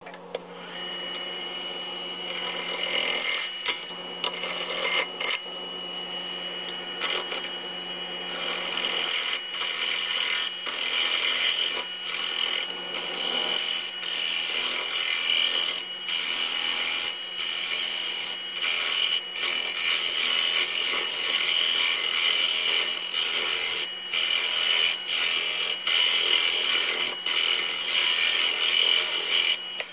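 Wood lathe running, with a low hum and a steady high whine from the machine, while a thin wooden stem spinning on it is worked by hand: a hiss of abrasion on the wood that stops and starts in many short breaks.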